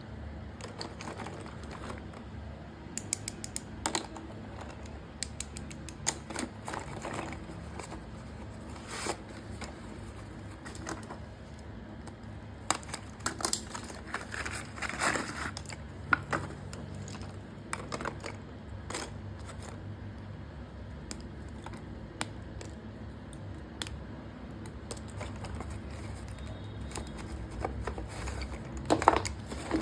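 Irregular light clicks and taps from small hard objects being handled, with a louder flurry of crackly handling near the end.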